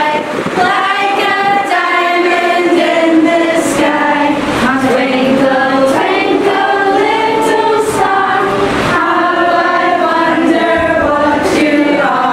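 A group of children and adults singing a song together in chorus, with held notes that step up and down in pitch.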